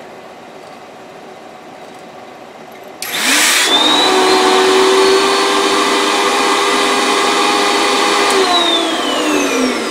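Vacuum former's vacuum motor switched on about three seconds in, spinning up with a rising whine and then running steadily; a second or so before the end it is switched off and winds down with falling pitch. The vacuum is drawing the heated plastic sheet down over the 3D-printed buck.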